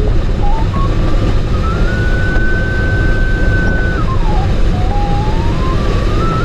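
Glider's takeoff roll on grass, heard from inside the cockpit: a loud, steady rumble of the wheel and rushing air. Over it an electronic variometer tone climbs in small steps, holds high, dips about four seconds in, then climbs again.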